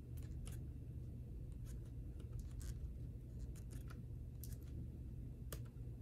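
Irregular small plastic clicks and scratches as gloved hands fit a replacement battery and its cable into an opened Dell Inspiron 15 7000 laptop, with a sharper click about five and a half seconds in. A steady low hum runs underneath.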